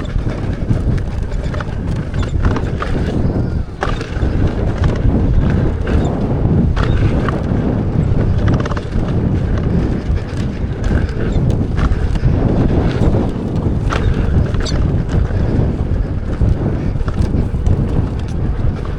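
Wind buffeting the microphone and the rumble of an off-road electric unicycle's knobby tyre over a rough dirt trail, with scattered clicks and knocks from bumps and rattling gear.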